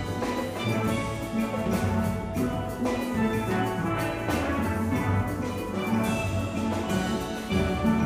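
A steel band playing: many steel pans ringing out melody and chords over low, sustained bass-pan notes, with drums keeping a steady beat.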